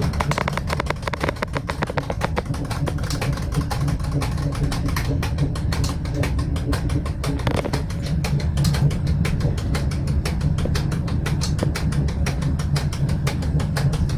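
Cab noise of an ER22 electric train under way: a steady low rumble from the running gear with constant fast rattling and clicking.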